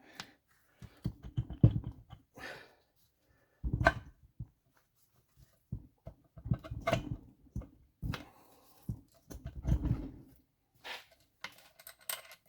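Metal engine parts of a Tomos moped engine being handled and fitted back loosely: an irregular series of knocks, clunks and light rattles.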